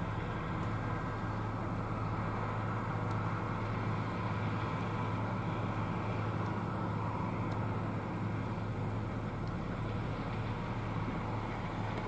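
New Holland combine harvester running steadily as it cuts soybeans, with the tractor pulling a grain cart alongside: an even machinery drone over a steady low engine hum.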